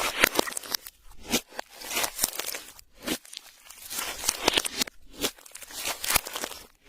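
Clear slime being squished and stretched by hand, giving irregular sticky crackles and pops that come in runs with brief pauses.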